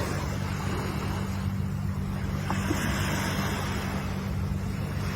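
Ocean waves washing in, swelling a little in the middle, over a steady low rumble.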